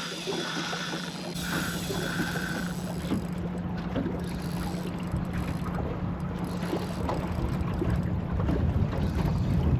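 Wind rumbling on the microphone over a steady low hum, with scattered light ticks.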